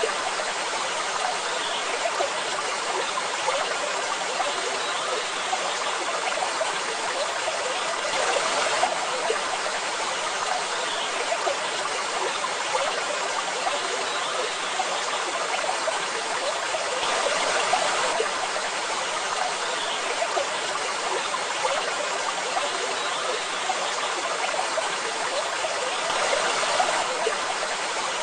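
Waterfall water rushing and splashing in a steady, even hiss, swelling a little three times about nine seconds apart.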